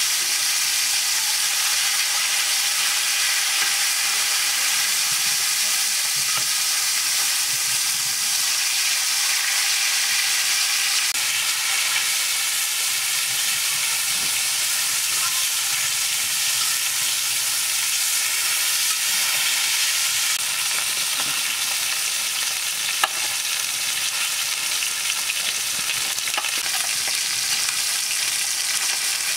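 Fish pieces shallow-frying in hot oil in a black iron pan, a steady sizzle, with the metal spatula scraping and tapping the pan as the pieces are turned, one sharp tap about three-quarters through.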